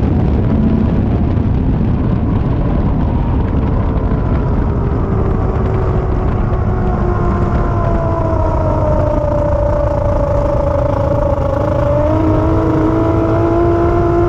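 Racing powerboat's engine winding down as the boat comes off the throttle, its note falling steadily in pitch, over a heavy rush of wind and water. About twelve seconds in it settles into a steady lower note.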